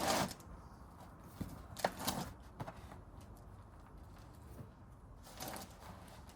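Hands digging and scooping through damp soil in a potato grow bag: a few short rustling scrapes, the loudest at the very start and about two seconds in, a softer one near the end.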